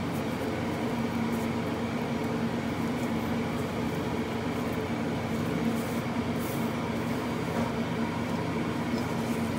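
A steady machine hum: a constant low drone with a fainter higher whine above it, unchanging throughout.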